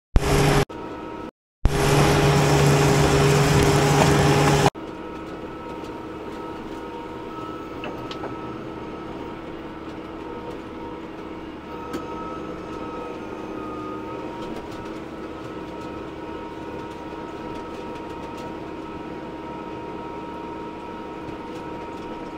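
Tractor engine running steadily while pulling a hay rake: a constant drone with a faint steady whine. Near the start the sound cuts out abruptly twice, and a louder, deeper engine drone lasts about three seconds before cutting off sharply.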